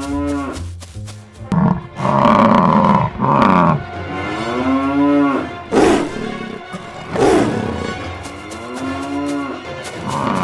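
Cow mooing, long moos that rise and fall in pitch, one about every four seconds. Louder harsh calls come between about two and four seconds in, and sharp hits near six and seven seconds.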